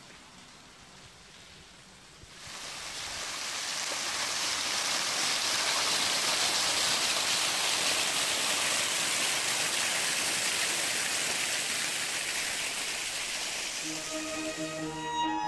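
Water cascading down a wet rock face as a small waterfall: a steady rush that comes in about two seconds in and holds. Violin music fades out at the start and comes back in near the end.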